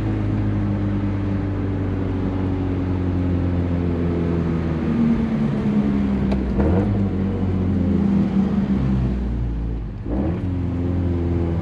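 Mazdaspeed3's turbocharged 2.3-litre four-cylinder engine, breathing through a full CPE exhaust with a catless downpipe, running at a steady pitch, with a short drop in level about ten seconds in.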